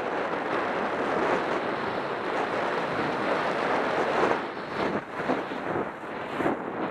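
Skis sliding over snow with wind rushing over the camera's microphone: a steady rushing hiss that dips and swells a few times in the second half.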